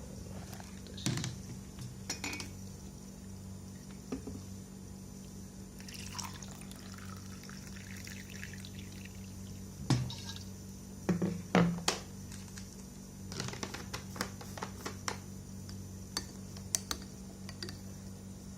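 Liquid being poured, with scattered clinks and knocks of kitchenware such as glasses, pots and spoons during kitchen preparation. A steady low electrical hum runs underneath.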